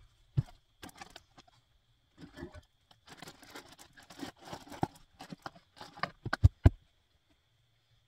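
Rustling, tapping and clattering as gear is handled and a box lid is opened and shut at the back of a minivan, with a flurry of small clatters in the middle and two sharp thumps near the end.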